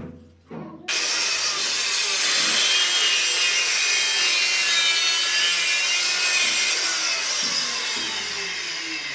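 A handheld electric tile cutter starts abruptly about a second in and grinds through a ceramic tile, a loud gritty noise with a high whine. Near the end it is lifted off and winds down, fading with a falling pitch.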